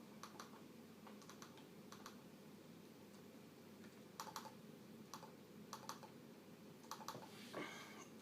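Scattered light plastic clicks of a Compaq Evo N400c laptop's keys and touchpad mouse buttons being pressed, often in quick pairs, with a brief rustle near the end.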